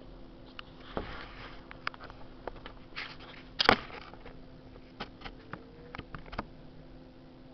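Handling noise on a handheld camcorder: scattered clicks and short rustles, with one loud sharp knock just past halfway. A faint steady hum runs underneath.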